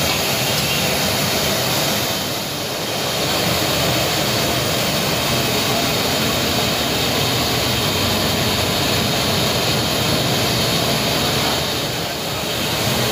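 Gas burner flames under a large aluminium cooking pot, a steady loud rushing roar.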